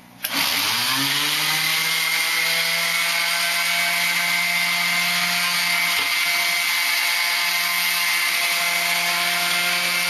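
Electric orbital sander switched on, its motor whine rising in pitch over the first second as it spins up, then running steadily while it sands the wooden pinewood derby car.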